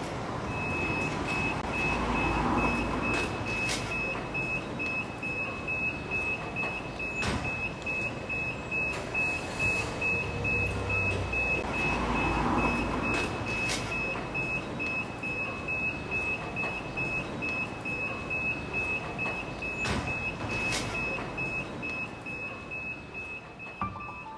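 City street traffic noise: a steady rumble that swells twice as vehicles pass, under a thin, steady, high-pitched electronic tone, with a few sharp knocks.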